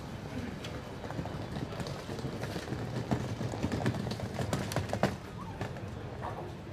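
Press camera shutters clicking in quick, irregular runs, thickest through the middle, over the steady bustle of a crowd.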